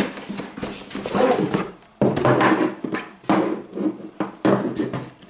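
Cardboard shipping box being pulled open and the foam-wrapped inner box handled: rustling, scraping and tearing of cardboard and wrapping, in several bursts with a brief pause about two seconds in.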